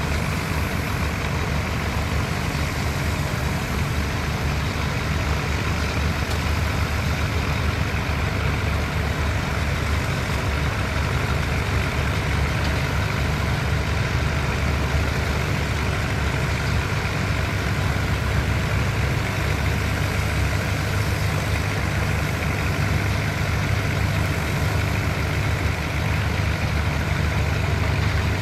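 Heavy diesel engine of construction machinery running steadily at low revs, a deep even drone with no sharp changes.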